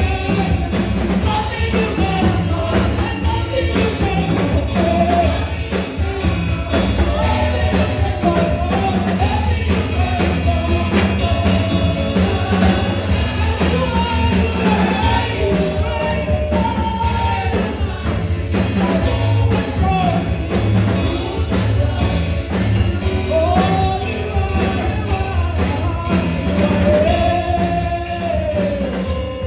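Church praise-and-worship music: singing over a band with bass and a steady beat.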